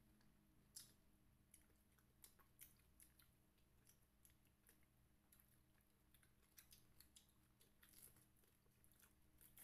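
Faint chewing and biting of fresh pineapple spears: scattered soft clicks over a low steady hum.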